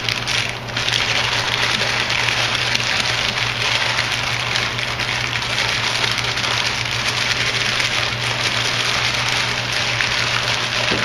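Parchment paper crinkling and rustling as it is folded and crimped around a meatloaf to seal the parcel. It is a steady, dense crackle that dips briefly about a second in.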